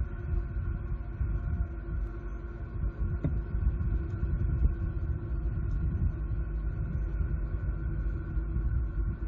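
Steady low rumble of road traffic on the eagle-cam microphone, with a faint constant hum above it.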